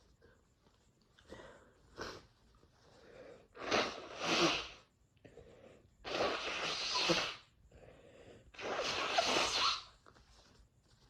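A person blowing their nose into a handkerchief: three noisy blows of about a second each, the first about four seconds in, after a few short, fainter sounds.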